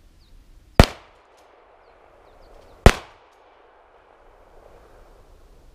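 Two 12-gauge shotgun shots about two seconds apart, from a Mossberg Model 500 pump-action firing Slinger ball-and-cable shells, each a sharp crack with a short echo dying away.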